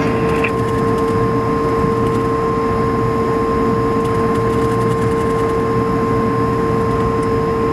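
Airbus A220-300's Pratt & Whitney PW1500G turbofan engines heard from inside the cabin, running steadily at low thrust while the jet taxis before takeoff: a constant two-note whine over a steady rumble.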